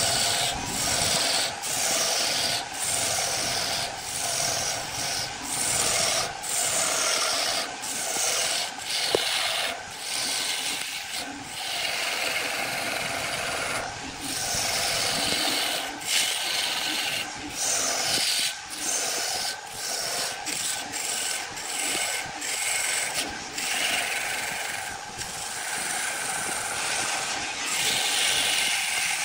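Woodturning lathe with a tool scraping and cutting the spinning wood, a steady rasping noise over a faint motor hum, broken by brief gaps about every second.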